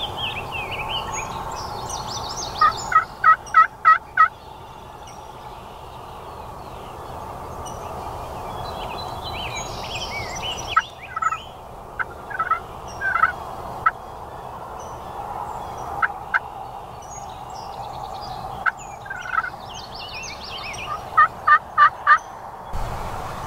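Wild turkey calling: a quick run of five sharp notes about three seconds in and again near the end, with scattered single notes between. Small songbirds chirp throughout over a steady background hiss.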